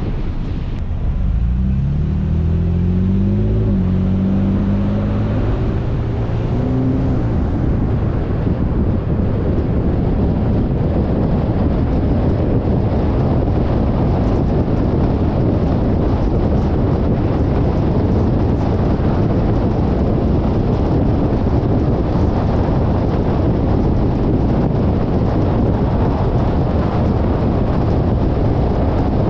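Car engine accelerating, rising in pitch with a gear change about four seconds in, then a steady rush of road and wind noise as the car cruises at speed.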